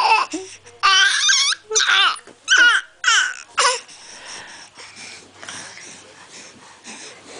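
A voice making a run of short, high-pitched squeals that slide up and down in pitch, about six in the first four seconds, then softer breathy sounds.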